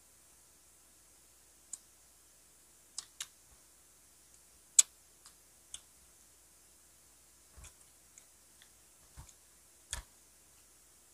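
Close-miked eating sounds: scattered short, sharp clicks and smacks from mouths biting into and chewing grilled hotdogs and skewered street food. One click about five seconds in is much louder than the rest, and there are a couple of duller knocks later on.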